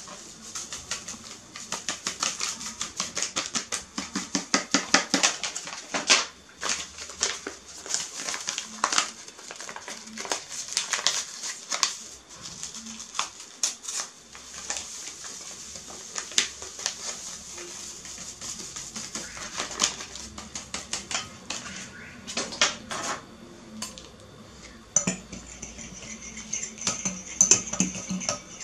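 Metal whisk clinking and scraping against a glass bowl in quick runs of clicks as whipped-cream powder is mixed into milk.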